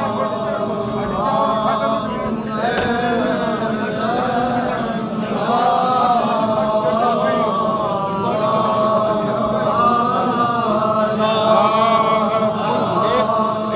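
A crowd of men chanting together, many voices overlapping in phrases of a second or two, without pause.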